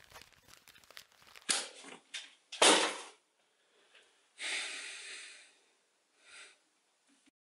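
A person breathing heavily: a few sharp breaths, the loudest a little under three seconds in, then a long sigh-like breath out about a second later and a last short breath near the end. Faint clicks come before it.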